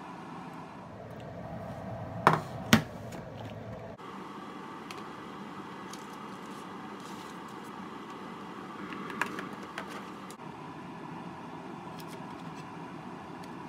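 A steady background hum, with two sharp knocks a couple of seconds in as a knife cuts through a rolled omelette onto a plastic cutting board. A few light clicks come later as food is packed into a stainless steel bento box.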